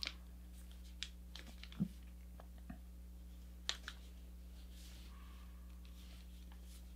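Faint crinkles and ticks of a sheet of paper being handled and pressed into a fold by hand, a few scattered over a low steady hum.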